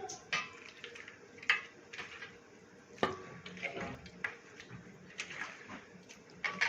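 Irregular clinks and knocks of kitchen dishes and utensils, several short strikes spaced unevenly about every half second to a second.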